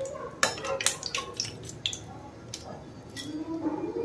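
A metal slotted spoon tapping and scraping against an oiled iron frying pan while fried pieces are scooped out of the oil, with several sharp clicks spread irregularly through.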